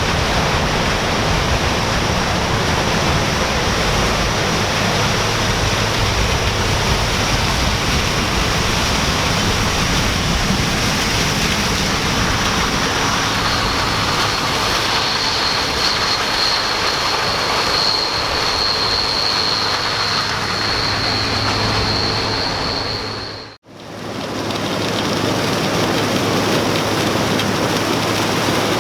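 New Holland CR 9070 combine harvester running while threshing corn: a loud, steady machine noise with a low hum and, for about ten seconds in the middle, a high steady whine. About three-quarters of the way in the sound briefly fades out and comes back.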